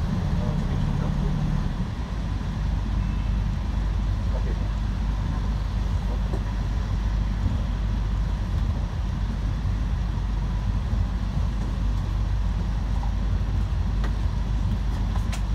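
Steady low rumble of a vehicle travelling along a wet street, engine and tyre noise heard from on board, with a couple of sharp clicks near the end.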